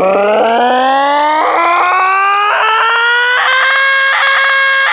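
A sample of a man's own voice played from a keyboard through Logic's Quick Sampler with a long glide: one sustained note whose pitch slides slowly upward and then levels off, with a repeating pulse about once a second.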